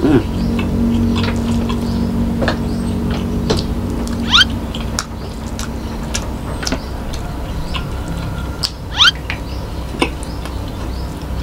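Close-miked eating sounds: a man chewing a mouthful of rice and soy-sauce egg, with scattered short mouth clicks and smacks. A few short, loud, rising chirps come through near the start, about four seconds in and about nine seconds in.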